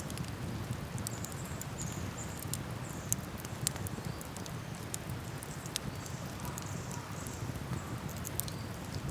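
Wood fire in a campfire stand crackling, with sharp pops at irregular intervals over a steady low rumble.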